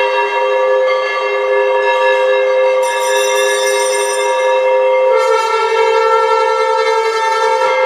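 Temple bells ringing with a long, steady horn-like tone from a wind instrument held over them, its pitch shifting about five seconds in.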